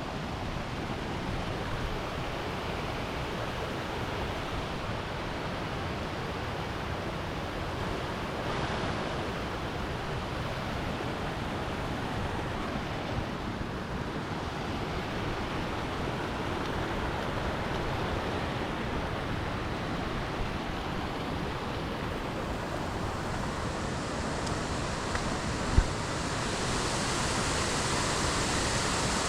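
Steady rush of water pouring over cascades and waterfalls, growing a little louder near the end, with one brief sharp knock a few seconds before the end.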